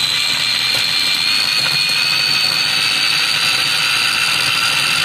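Kenwood mini chopper's electric motor running flat out with a steady high-pitched whine as its blade blitzes garlic, onion, lemon juice and olive oil into a wet rub.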